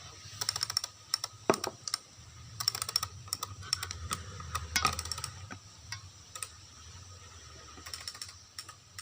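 Computer keyboard typing in several short bursts of rapid key clicks, with pauses between them.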